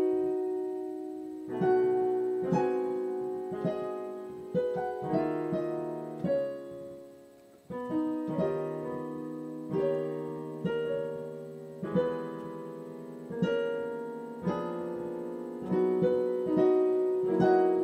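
Solo piano playing slowly, a chord or note struck about once a second and left to ring, with a brief pause about eight seconds in.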